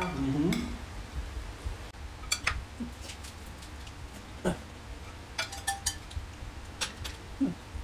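Eating sounds at a table: scattered sharp clicks of spoons against ceramic bowls and plates, with chewing and lip-smacking mouth noises.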